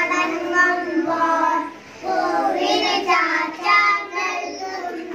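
A small group of young children singing together into a microphone, with a short break about two seconds in.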